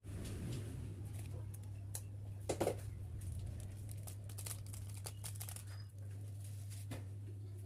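Scattered light clicks, taps and rustles of kitchen handling, with one firmer knock a little over halfway, over a steady low hum.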